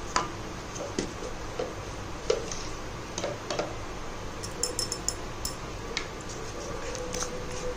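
Wooden spatula stirring a thick masala paste in a metal kadai, with irregular taps and scrapes against the pan over a steady low hiss.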